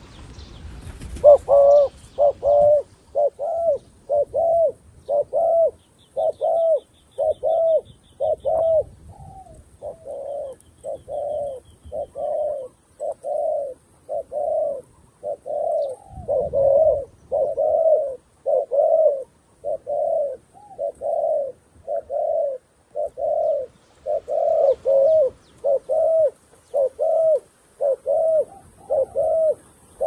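Spotted dove cooing: a long, even run of short, repeated coos, about one a second, a decoy dove's call to bring wild doves down. A small bird chirps briefly and faintly about a quarter of the way in.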